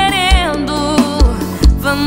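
Brazilian sofrência pop song: a woman sings a wavering, drawn-out line over a steady kick drum beat, about two beats a second.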